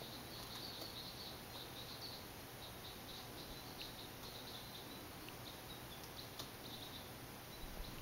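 Faint, high-pitched bird chirping in quick, irregular bursts, densest in the first couple of seconds and sparser after.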